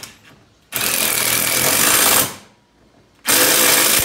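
Cordless impact wrench running in two bursts, the first about a second and a half long and the second under a second, as it runs in a 14 mm bolt at the top of the wheel well during reassembly.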